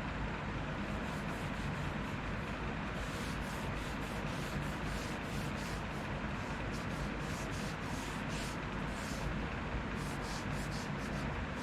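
Cloth rubbing finish into a wooden tool handle in quick, repeated strokes, starting about three seconds in, over a steady low hum.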